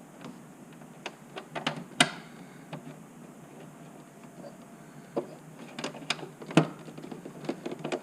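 Irregular clicks and taps of a hand tool turning a screw into a plastic battery box's thread insert, with two sharper clacks, about two seconds in and again past six seconds. The screw is binding in the insert because the box's holes are out of line.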